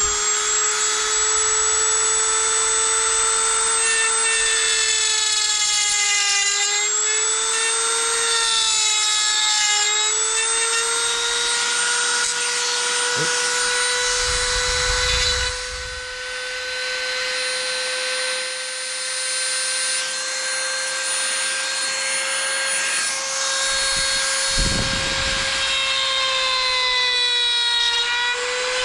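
Dremel rotary tool running at high speed with a steady high whine, its small bit cutting a hole through a plastic earmuff cup for a headset speaker wire. The pitch sags briefly twice, around six and nine seconds in, as the bit bears into the material.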